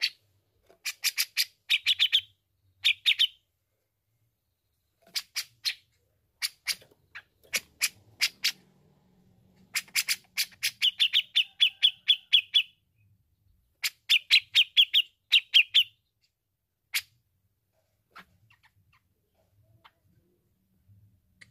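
Grey-cheeked bulbul (cucak jenggot) singing in runs of rapid, sharp chattering notes, several a second, with short pauses between runs. The bird falls mostly quiet for the last few seconds after one final note.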